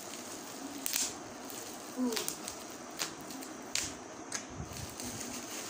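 Plastic bubble-wrap packaging crinkling as it is pulled open by hand, with a few sharp crackles about a second apart.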